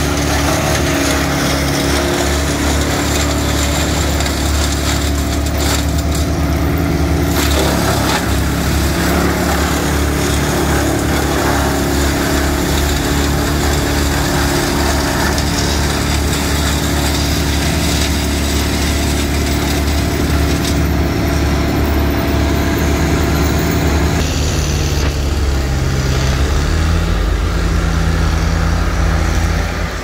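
Wood chipper running steadily as leafy branches are fed in and chipped, with a short burst of grinding about a quarter of the way in. Near the end the engine note drops under the load and then climbs back up.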